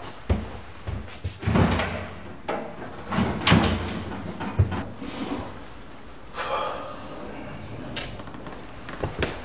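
Cabinet doors and drawers being opened and shut by hand, with irregular knocks and rustling from rummaging through the furniture.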